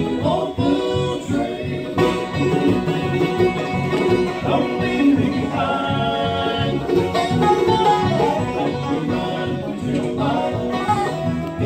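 Live bluegrass band playing, with resonator guitar (dobro), mandolin, acoustic guitar and banjo picking together.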